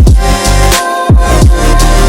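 Loud electronic background music with a steady beat and deep bass notes that slide down in pitch.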